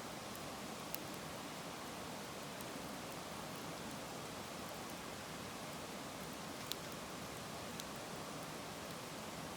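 Wood fire burning: a steady soft hiss and rustle of the flames, with a few sharp crackling pops, the loudest about a second in and near seven seconds.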